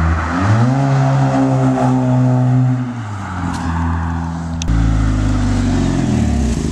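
Honda Accord with an aftermarket Tsudo dual race exhaust accelerating away: the engine note climbs, holds, then drops off. About two-thirds of the way through the sound cuts to a deeper, steady exhaust drone as the car runs close by, rising briefly and easing again near the end.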